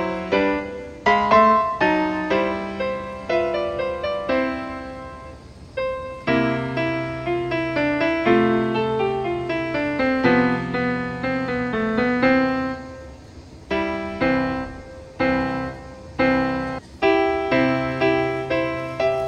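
Background piano music: a gentle melody of single struck notes and chords, each ringing and fading, with a few brief lulls between phrases.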